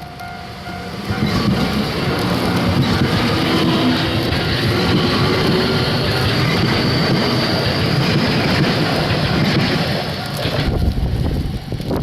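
Keio Inokashira Line electric train passing over a level crossing: loud wheel and running noise that sets in about a second in, holds for about nine seconds and drops away near the end as the train clears. The crossing's alarm bell rings at the start, before the train reaches the crossing.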